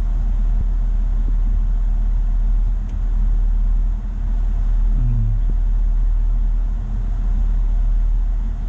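Steady low rumble of the BMW X5's engine idling, heard inside the cabin, with an even hiss from the heater blower.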